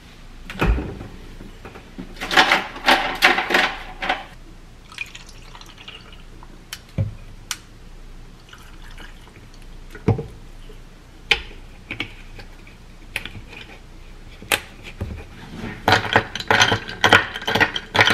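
Ice cubes dropped into a glass of juice, clinking and splashing in a dense run about two to four seconds in, with scattered single clinks after. Near the end, a metal straw stirs the ice in the glass with rapid clinking.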